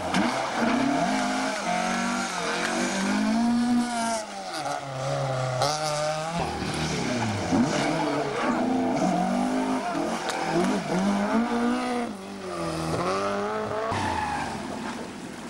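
Historic rally cars driven hard through a bend one after another: first a Fiat 131, then a Ford Escort, then a Porsche 911. Each engine revs up and falls away again as it lifts off and changes gear, with some tyre squeal.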